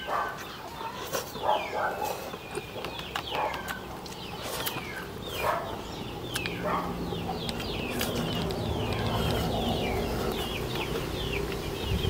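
Birds chirping and calling again and again in short notes that fall in pitch, with a low steady hum building up from about halfway through.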